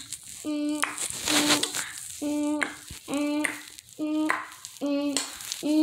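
A child's voice repeating short sung syllables on nearly the same note, roughly one or two a second, with hissing breath sounds between them.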